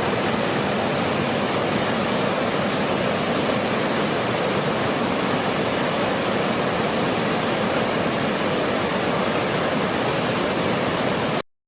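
Spring water gushing and cascading, a steady loud rush that cuts off suddenly near the end.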